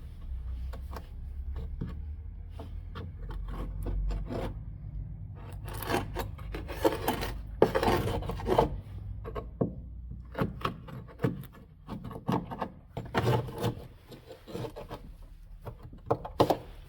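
Irregular rubbing and scraping strokes on a surface, in uneven bursts that are strongest near the middle, over a low steady rumble.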